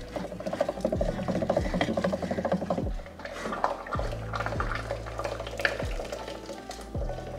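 Wooden saag masher (madani-style ghotna) working thick cooked saag in an aluminium pressure cooker: rhythmic wet scraping and rubbing of wood against the greens and the pot.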